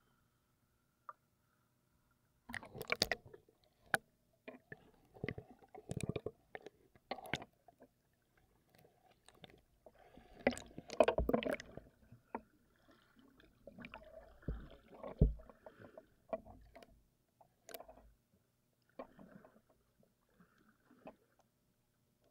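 Water splashing and sloshing against a swimmer's hand-held camera as it moves at and under the surface: quiet for the first couple of seconds, then irregular splashes and knocks, loudest a little after ten seconds in.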